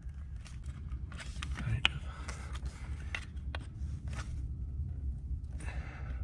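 Small clicks and rustling of needle-nose pliers and fingers working a rubber PCV hose loose from its fitting, twisting it free, over a steady low hum.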